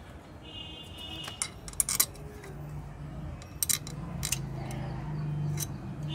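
Loose steel bolts clinking together in a hand and against the scooter's transmission cover as they are fitted back in: several sharp metallic clinks, bunched in the middle.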